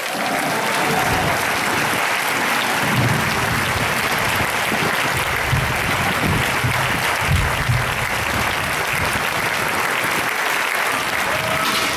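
Large crowd applauding steadily, with irregular low rumbles underneath for a few seconds in the middle.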